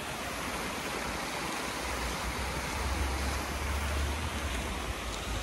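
Steady rushing noise with a low rumble that swells about halfway through.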